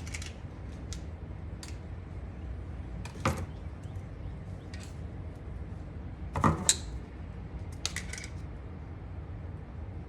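A few sharp clicks and knocks of hand tools and wiring parts being handled, over a low steady hum; the loudest come about three seconds in and again about six and a half seconds in, with a quick run of small clicks near eight seconds.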